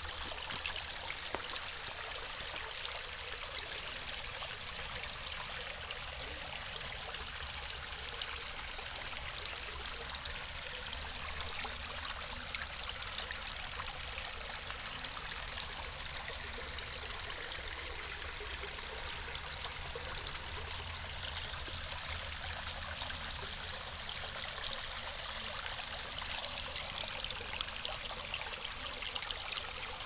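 Very small mountain stream running and trickling over rocks: a steady, even rush of shallow water.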